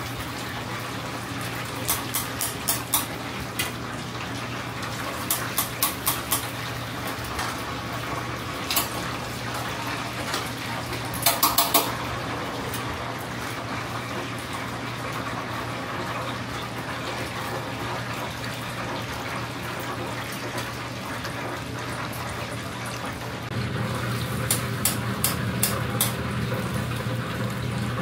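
Chicken karaage deep-frying in a commercial fryer: the oil sizzles steadily, with clusters of sharp clicks from metal tongs against the fryer and the steel tray as pieces are lifted out. A steady low hum runs underneath.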